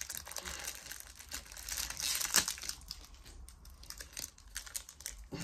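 Foil packet wrapper crinkling and crackling irregularly as it is handled and torn open by hand, with a sharper crackle about two and a half seconds in.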